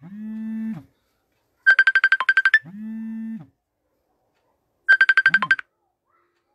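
Electronic ringtone-style tune looping about every three seconds: a quick run of about ten high beeps, then a lower held tone. The loop plays twice, and the last run of beeps breaks off near the end.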